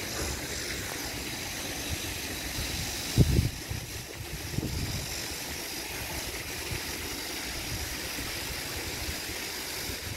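Steady outdoor background noise: an even hiss over a fluctuating low rumble, with one loud thump about three seconds in and a couple of softer ones just after.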